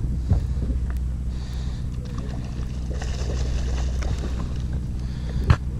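Sportfishing boat's engine running with a steady low drone, under a wash of wind and water. A single sharp knock sounds near the end.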